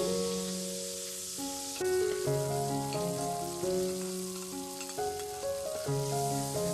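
Garlic, chili and spices sizzling as they fry in oil in a steel wok, with a spatula stirring through them. Background music with a melody of sustained notes plays over it.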